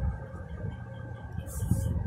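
Drawing on paper: low knocks and rubbing from the hand and paper, under a faint steady hum, with a brief scratchy hiss of a stroke about one and a half seconds in.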